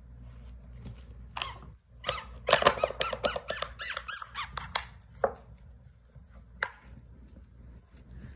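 French bulldog puppies playing with toys on a hardwood floor: a burst of rapid, high squeaking and squealing from about two to five seconds in, with scattered clicks and scuffles before and after.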